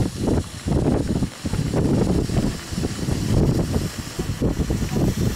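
Wind buffeting the microphone in irregular low gusts.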